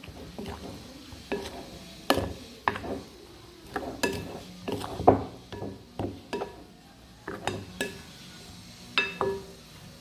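Chicken pieces being stirred into dry breading mix in a bowl: irregular clinks and knocks against the bowl, a few a second, with soft scraping between them.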